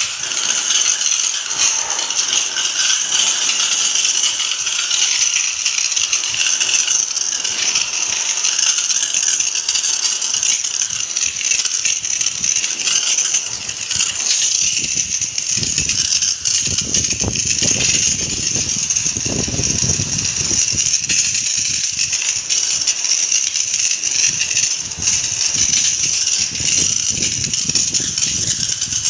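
Water jet from a hose spray nozzle hissing steadily as it washes a window-type air conditioner's coil, with heavier splattering against the unit from about halfway through.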